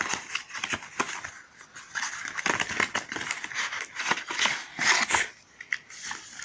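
Cardboard retail box of an Amazon Echo Dot being opened by hand from the side flap and its insert slid out: a string of scrapes, rustles and small clicks.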